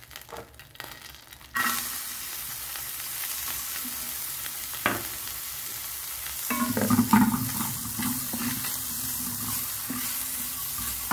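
Chopped red onion frying in hot oil in a stainless steel pan: the sizzle starts suddenly about a second and a half in and runs steadily. From about six and a half seconds a wooden spatula stirs the onions around the pan, the sizzle getting louder with scraping.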